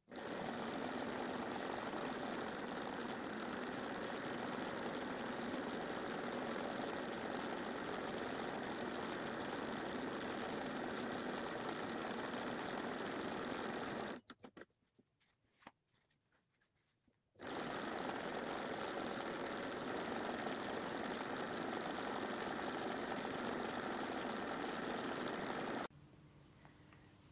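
Domestic sewing machine running steadily at speed, stitching free-motion stipple quilting through fabric and batting. It stops for about three seconds midway, with a few clicks, then runs again until it stops shortly before the end.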